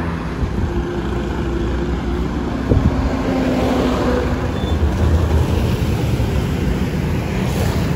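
Road traffic: motor vehicles running past on the road, a steady rumble of engines and tyres. There is one short knock just under three seconds in.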